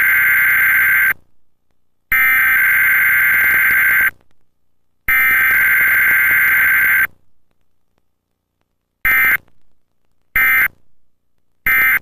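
Emergency Alert System SAME data bursts from a cable system's Required Weekly Test: three buzzing bursts of about two seconds each, a second apart, then three short end-of-message bursts near the end.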